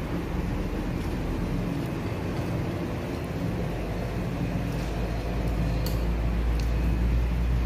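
Steady low rumbling background noise, growing slightly louder near the end, with a few faint clicks.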